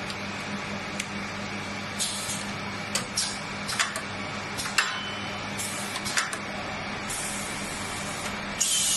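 A shoe-making machine running with a steady hum, irregular sharp clicks, and several short hisses about two, six, seven and near nine seconds in.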